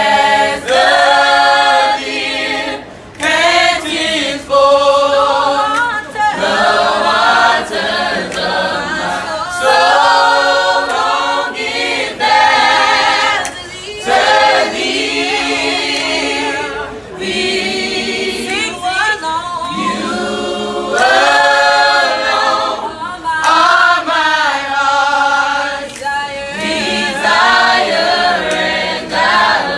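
A small choir of men and women singing together a cappella, in harmony, phrase by phrase with brief breaks between phrases.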